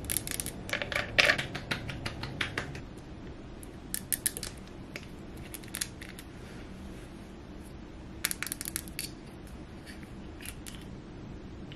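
Plastic skincare bottles and a small jar being handled: caps clicked open, a jar lid twisted, and long nails tapping the containers, in short clusters of quick clicks and taps, the busiest in the first few seconds.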